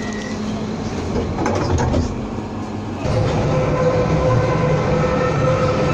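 London Underground train noise on a deep-level tube platform: a steady rumble that grows louder about three seconds in, joined by steady whining tones from a train in the tunnel.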